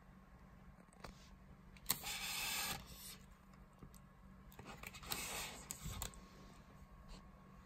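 Handling noise: two short scraping rustles, about two seconds in and again from about four and a half to six seconds in, as a hand moves over the leather tanker helmet, over a faint steady room hum.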